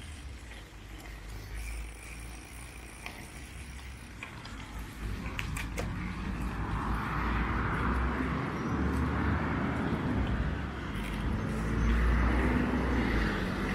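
Street sound from a moving bicycle: wind rumbling on the camera's microphone, with road traffic noise that grows steadily louder from about halfway through.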